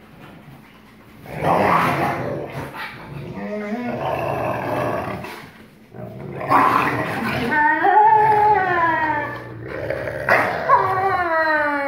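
Two wolfdogs play-fighting: loud growling that starts about a second in, broken twice by long high cries whose pitch rises and falls.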